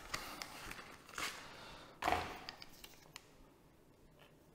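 Small clear plastic parts bag crinkling and rustling in the hands as a plastic propeller is taken out, with a few light clicks; the loudest rustle comes about two seconds in, then it settles to soft handling.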